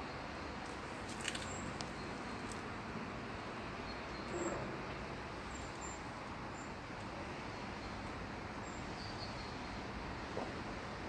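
Outdoor ambience: a steady hum of distant traffic with faint, brief bird chirps now and then.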